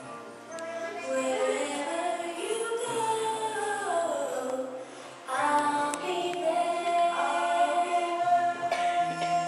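A song with sung vocals over instrumental backing; the voice holds one long note through the last few seconds.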